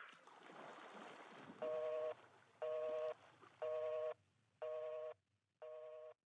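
Telephone busy tone after the other end has hung up: a steady two-pitch beep about half a second long, repeated once a second, five times, growing fainter toward the end. Faint splashing water comes before the first beep.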